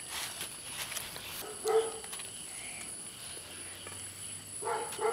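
A dog gives two short barks, one about a second and a half in and another near the end, after a run of light clicks.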